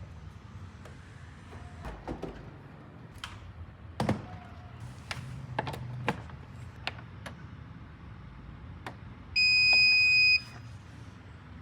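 A few scattered clicks and knocks, then a single steady, high electronic beep lasting about a second.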